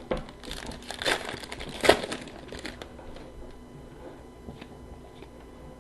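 Plastic trading-card pack wrapper crinkling as it is torn open and crumpled, loudest about one and two seconds in, followed by a few faint clicks of cards being handled.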